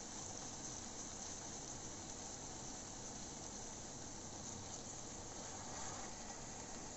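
Capsicum, onion and tomato cooking gently in a kadai, a faint, steady sizzling hiss.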